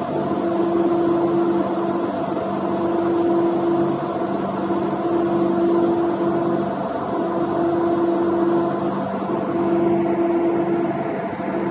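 Fishing vessel's deck machinery running with a steady hum, and a higher tone that cuts in and out every couple of seconds.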